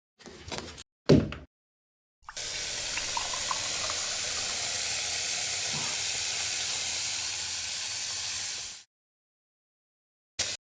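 A short rattle and a sharp thump, then a steady hiss that lasts about six seconds and cuts off abruptly, and a brief click near the end.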